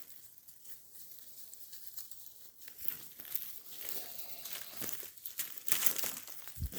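Dry leaves, twigs and brush crackling and rustling underfoot and against the body as someone pushes through dense undergrowth, fainter at first and busier from about halfway.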